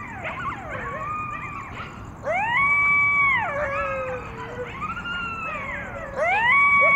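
Coyotes howling: long calls that rise steeply, level off and hold, then slide down. Other voices waver and cross over one another between them. The loudest held howls come a couple of seconds in and again near the end.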